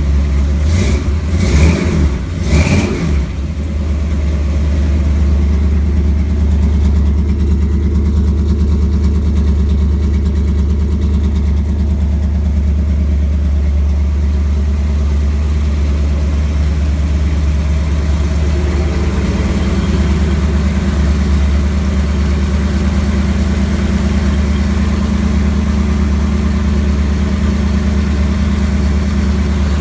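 1958 Chevrolet Apache pickup engine running through newly fitted mufflers and tailpipes. There are three short sharp bursts in the first three seconds, then it idles steadily.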